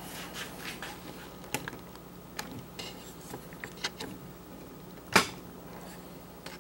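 Scattered light clicks and taps, with one sharper knock about five seconds in, over a faint steady low hum.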